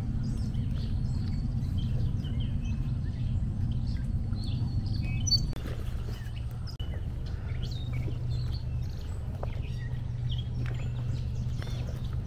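Scattered short chirps of small birds over a steady low rumble of outdoor background noise.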